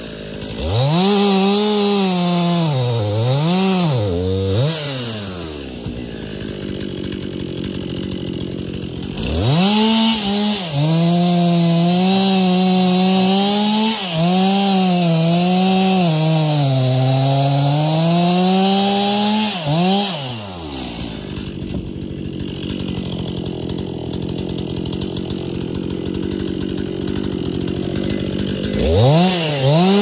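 Stihl MS 261 C-M two-stroke chainsaw cutting a downed white pine log. The engine revs up and its pitch sags and recovers as the chain bites into the wood. It drops back to idle between cuts, about 5 to 9 seconds in and again from about 21 seconds, then revs up again near the end.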